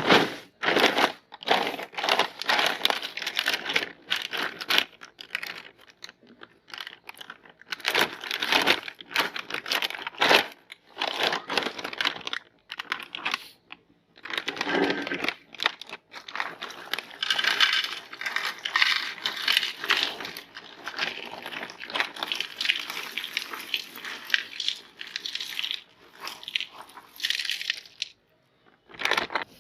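Plastic packaging being crinkled and torn open by hand in irregular bursts, with short pauses between handlings.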